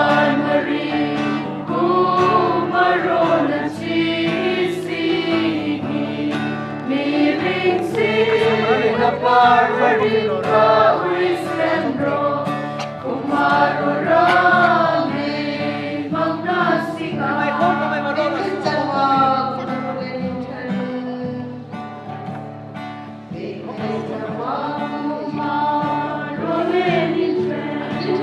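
A group of voices singing a gospel-style hymn together over steady sustained low accompaniment notes.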